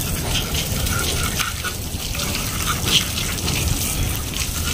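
Water jetting steadily from a pump-fed hose and splashing onto concrete and a plastic air-conditioner housing.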